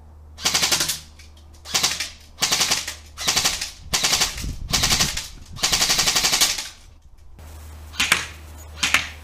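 G&G CM16 Raider airsoft electric gun (AEG) firing on full auto in short bursts, its gearbox cycling rapidly. There are about six bursts of half a second to a second each, then two shorter ones near the end.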